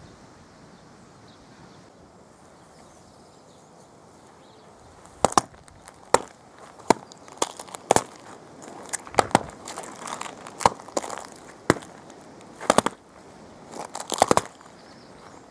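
Hen's eggs being stepped on and crushed underfoot, their shells cracking: a string of sharp cracks, about one or two a second and sometimes in quick pairs, starting about five seconds in after a stretch of faint background noise.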